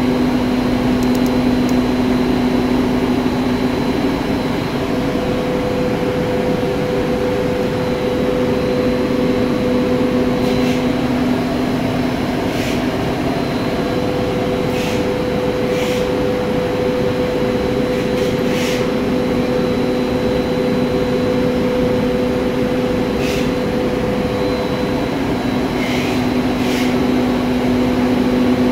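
Three-phase motor running steadily on a variable frequency drive: a steady electrical hum with a thin high whine above it. A few short, faint high ticks come and go.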